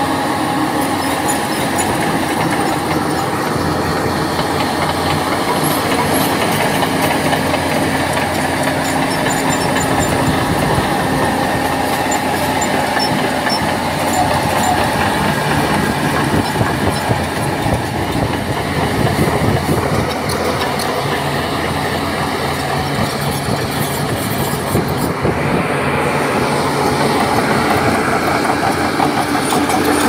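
Crawler bulldozer working, its diesel engine running steadily under load and its steel tracks clanking without a break.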